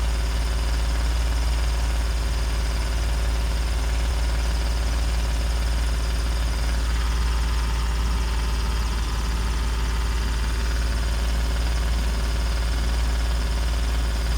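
2017 Ford F-150 engine idling steadily, a constant low rumble with even pulsing, with exhaust leaking from a rusted muffler.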